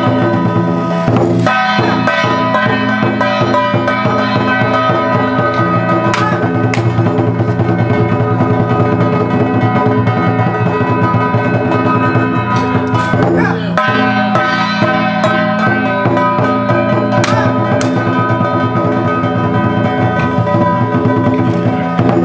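Traditional temple ritual music: a sustained, pitched melody played over drums and percussion, phrases breaking and bending every few seconds.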